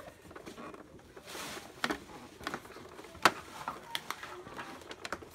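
Hard plastic pieces of a PJ Masks headquarters playset being handled and fitted together: scattered clicks and knocks, with one sharp knock about three seconds in and a brief rustling scrape before it.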